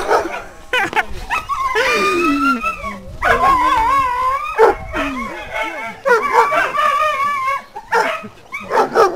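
Young dogs yelping and whining in long wavering cries mixed with short barks, excited in play.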